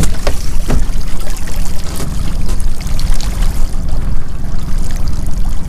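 A small boat's engine running as a steady low rumble, with water trickling and splashing off a freshly hauled crab pot. A few sharp knocks come as the pot is handled, one near the start and one about two seconds in.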